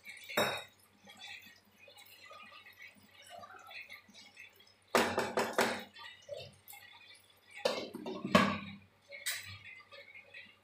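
Cookware handling: a wooden spatula knocks against a metal cooking pan, then a glass lid is set on the pan with clattering clinks. The knocks come about half a second in and around five seconds, and the lid clinks near the end.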